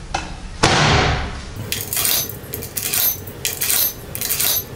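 Door of a Girbau commercial washing machine shut with a thud about half a second in, then a quick series of sharp metallic clinks as coins go into the machine's coin slot.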